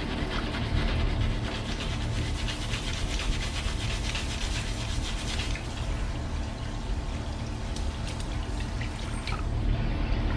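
A stiff chain-cleaning brush scrubbing a wet bicycle cassette and chain, making a steady scratchy rasp over a constant low rumble.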